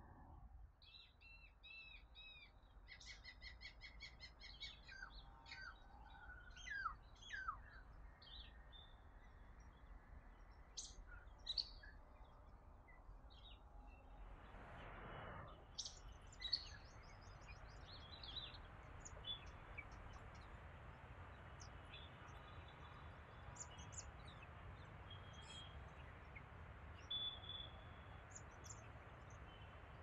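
Several wild birds calling: high trills, fast runs of repeated notes and short falling whistles, thickest in the first half. A faint steady hiss comes up about halfway through and stays under the calls.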